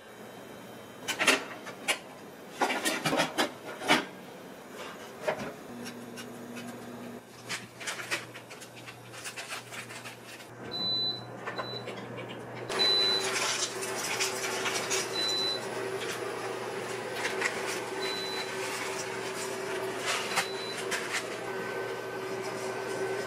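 Kitchen cooking sounds: sharp clicks and knocks of handling a bottle and tray, then, from about halfway, water boiling in a frying pan with a steady hiss and a low hum, with light taps as rice noodles are stirred in it with wooden chopsticks. A few short high beeps sound around the middle.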